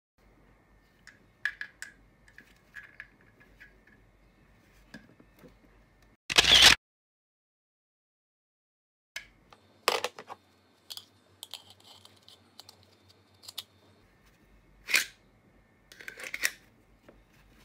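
Sharp plastic clicks and knocks from a Kydex pouch and its 3D-printed PLA retention insert being handled, with one much louder half-second burst about six seconds in. Near the end a flashlight is pushed into the stiff Kydex pouch, with a few louder clicks as it seats.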